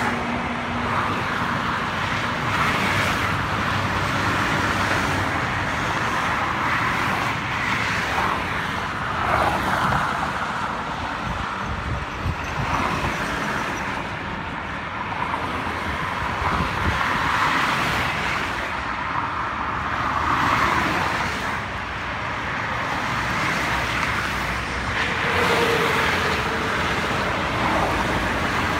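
Continuous multi-lane highway traffic: cars and trucks passing below, the tyre and engine noise swelling and easing as each vehicle goes by.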